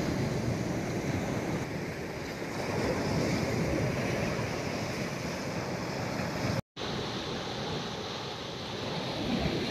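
Sea surf washing in steadily, with wind buffeting the microphone; the sound swells a little about a third of the way in and cuts out for an instant about two-thirds through.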